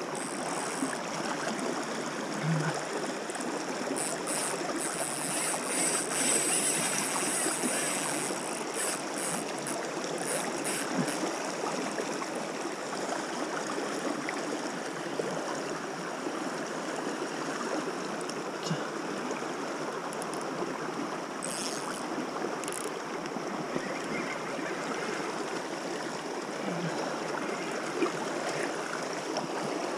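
Small, fast river rushing over a shallow, stony bed: a steady rush of water. There is a run of faint high scratchy ticks from about four to eleven seconds in.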